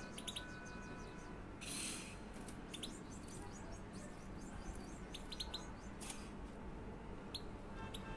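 Young European goldfinches in cages giving short, high chirps and quick twittering notes. Two brief rustling bursts come through, one about two seconds in and a shorter one about six seconds in.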